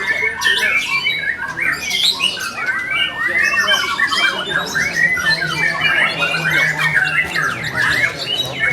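White-rumped shama (murai batu) singing a fast, unbroken stream of varied sweeping notes.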